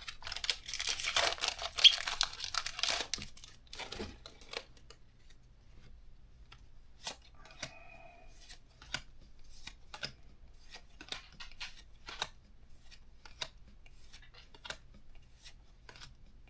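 A foil booster pack wrapper being torn open and crinkled for about the first three seconds, then scattered soft clicks and snaps of trading cards being flipped through one by one.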